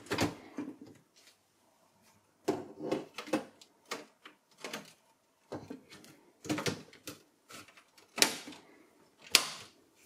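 Plastic front bezel of a small-form-factor HP desktop being fitted onto its steel case: a scattered series of clicks, scrapes and knocks, with two sharper clicks near the end.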